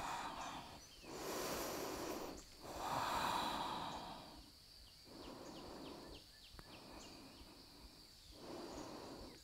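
A person's slow, audible breaths in and out while holding a yoga pose, a hissy rush on each breath about every one and a half seconds, stronger in the first few seconds and fainter after.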